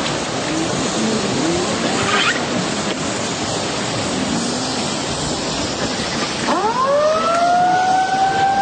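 A steady rushing noise. About six and a half seconds in, a siren winds up in pitch and settles into a steady wail.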